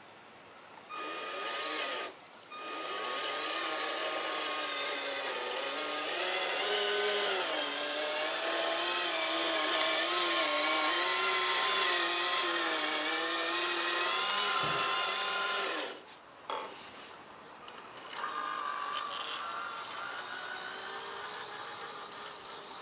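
Electric drive motor and gearbox of a radio-controlled model truck whining as it drives, the pitch wavering with the throttle. It stops abruptly about 16 seconds in and comes back fainter about two seconds later as the truck moves off.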